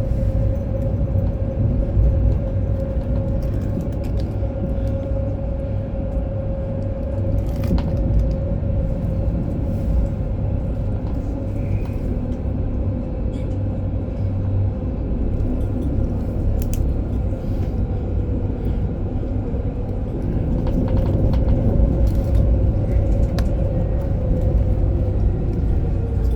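Interior of an Alstom Citadis tram in motion: a steady low rumble with a held traction-motor whine that drops in pitch near the end as the tram slows, plus occasional light clicks and rattles.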